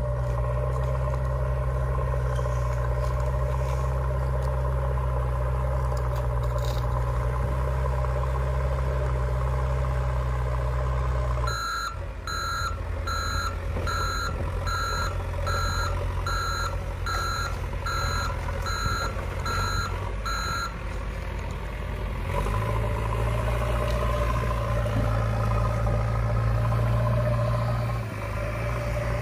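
A battery-powered toy construction vehicle: a steady low hum, then a reversing-alarm beep repeating about three times every two seconds for roughly nine seconds, about fourteen beeps in all, after which the hum returns.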